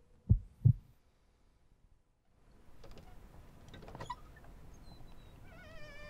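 A heartbeat: two low thumps in quick succession, a lub-dub, near the start. Faint background noise follows with a couple of clicks and, near the end, a wavering high-pitched sound.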